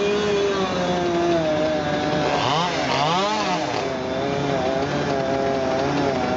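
Chainsaw engine running at high revs, its pitch dipping and rising sharply twice about two and a half seconds in as the throttle is let off and opened again.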